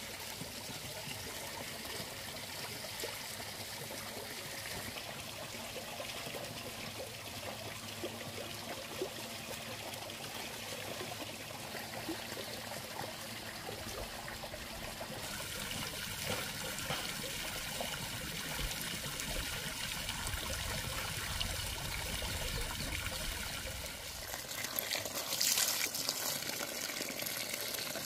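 Water trickling and running steadily. The sound shifts about halfway through, and there is a brief louder rush near the end.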